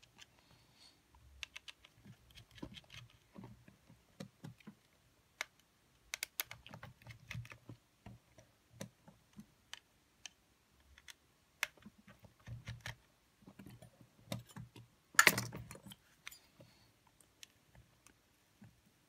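Scattered small clicks and taps of a precision screwdriver working on the circuit board and metal chassis of a Sony EX999 cassette player as it is taken apart, with one louder clatter about fifteen seconds in.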